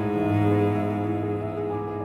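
Background music of slow, held string notes, a new chord coming in at the start and easing off slightly toward the end.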